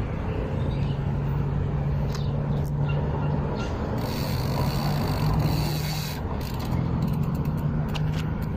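Bicycle being ridden on a concrete road: wind rushing over the microphone and tyre noise, with a steady low hum and a brief hiss about four seconds in.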